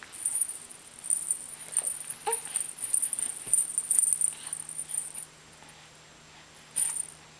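Soft cloth rustling as a rag doll is moved over a baby's chest and clothes on a quilted bedspread, in a string of scratchy bursts that stop about five seconds in. There is one short baby coo about two seconds in, and a last brief rustle near the end.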